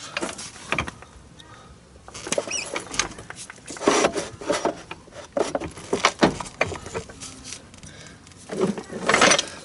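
Scattered metal scrapes and knocks with short squeaks as a pry bar is worked under a golf cart's leaf spring to wiggle it loose.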